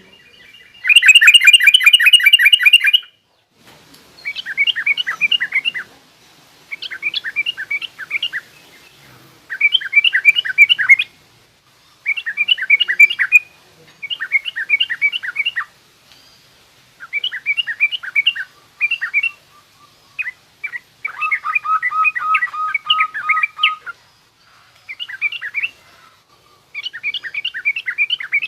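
Yellow-vented bulbul (trucukan) singing a rough, chattering twitter in repeated bursts of rapid notes, each one to two seconds long, with short pauses between them. The first burst is the loudest.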